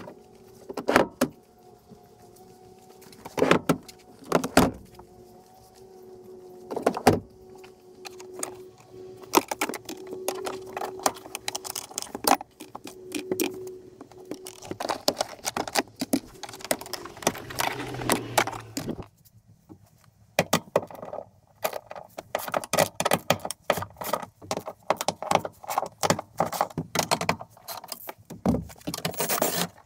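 Clicks, knocks and metallic clatter of hand tools and plastic seat trim pieces being handled on a car's folded rear seat and cargo floor. A few loud knocks come in the first seven seconds, a faint steady hum runs under roughly the first half, and a dense run of quick clicks fills the last ten seconds.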